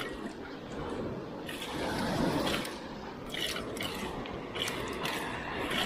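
Water sloshing and dripping, with a few small wet clicks in the second half.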